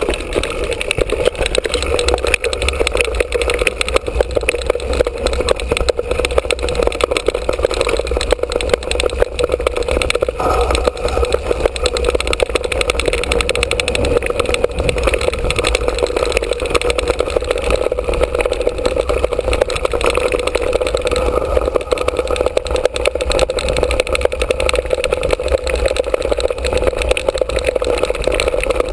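Mountain bike riding fast down a dirt trail, heard from a camera mounted on the bike: a steady rush of wind and tyre noise with dense, continuous rattling and knocking as the bike and mount shake over the rough ground.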